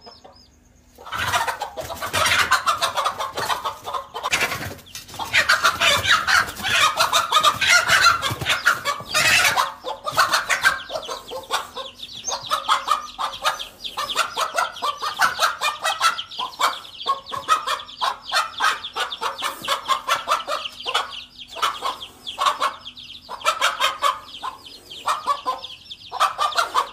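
A hen squawking and clucking loudly and rapidly in alarm at a snake threatening her chicks, starting about a second in, with the chicks' high cheeping running underneath.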